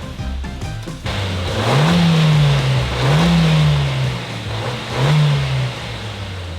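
Suzuki Jimny JB74's 1.5-litre four-cylinder engine revved three times in quick blips, each rising in pitch and falling back to idle.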